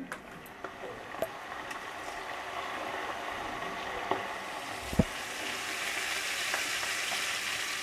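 Hilsa fish heads frying in hot oil in a kadai: a steady sizzle that slowly grows louder, with a few small pops and one light knock about five seconds in.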